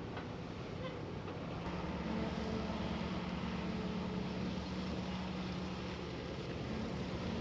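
Monighan 9W walking dragline's machinery running steadily under load while the full bucket hangs on its hoist chains. A steady low tone joins the hum about two seconds in.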